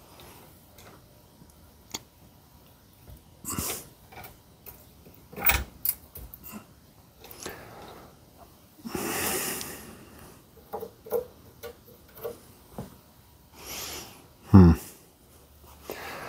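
Bottle-jack press rig under load, pressing the inertia ring onto a harmonic balancer: the chains and wooden blocks creak and click in scattered knocks, with a brief rustle about nine seconds in and a loud low creak near the end.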